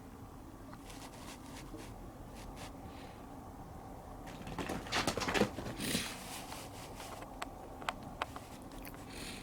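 A Siamese kitten's paws scampering and scrabbling on the floor as it dashes about, with a loud flurry of scuffing about halfway through and a few light taps afterwards.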